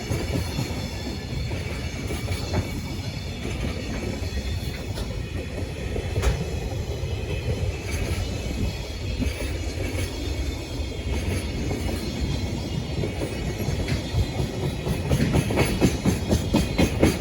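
JR Freight container train passing close by, its wheels clattering steadily over the rail joints. The clatter grows louder and more rhythmic near the end.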